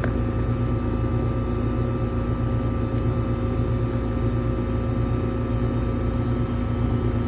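A 2007 1.5-ton Trane XL14i heat pump, with its Climatuff compressor, running steadily in heat mode: an even, low compressor hum with a few steady tones over the rush of the fan.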